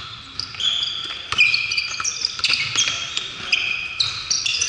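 Basketball shoes squeaking on a hardwood gym floor, many short high squeaks overlapping, with the thuds of a basketball bouncing.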